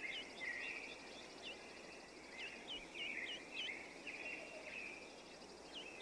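Marsh ambience: birds giving short, hooked chirps in quick runs now and then, over a steady high insect trill.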